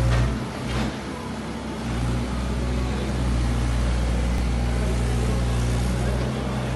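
Bobcat E45 mini excavator's diesel engine running steadily, growing louder about two seconds in and holding there.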